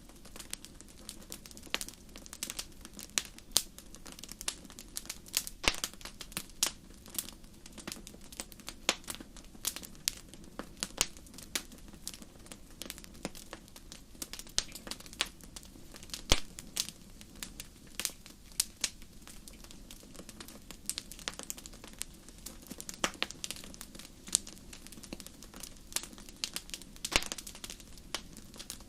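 Wood fire crackling in a fireplace: irregular sharp pops and snaps, several a second, over a steady low background of the burning fire, with one louder pop about sixteen seconds in.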